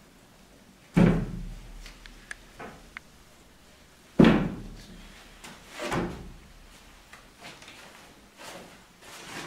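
Large painted panel being lowered and set down on the floor, landing with two heavy thumps about three seconds apart, with a few lighter knocks as it is handled.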